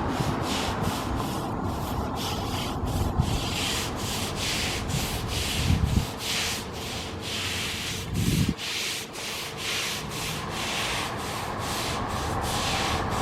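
Dubbed steam locomotive sound effect: rhythmic exhaust chuffs, about two or three a second, with two heavier low thumps about midway through.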